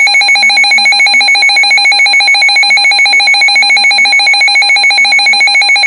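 Weather alert radio alarm going off ahead of a severe thunderstorm warning: a loud electronic beeping tone at a fixed pitch, pulsing rapidly several times a second.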